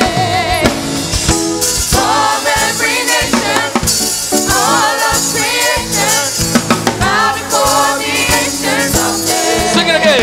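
Live gospel praise-and-worship music: a choir singing over a band with drums and percussion, at a steady, full level.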